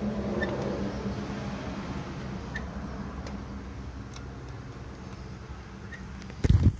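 A few faint light ticks of fan bolts being threaded in by hand on a Mercedes W123 water pump, over a steady low hum, with a short dull thump near the end.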